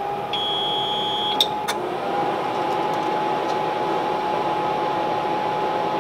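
APC UPS powering up on a 48 V battery bank with no load: a high beep about a second long near the start and a couple of sharp relay clicks about a second and a half in. A steady whine and rush from its cooling fan runs throughout.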